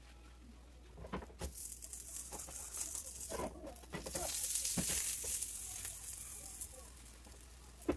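Hamburger patty sizzling in a little oil in a nonstick frying pan. The sizzle swells from about a second and a half in, is loudest around the middle and fades near the end, with a few light knocks as the patty is handled.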